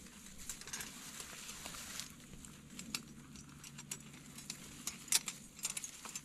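Dry grass rustling and light metallic clicks as a body-grip trap is handled at ground level, with a sharper click about five seconds in.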